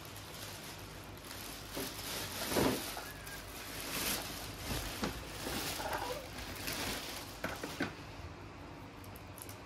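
Clear plastic bag rustling and crinkling in irregular swishes as it is pulled off an RC truck, with a couple of short clicks near the end.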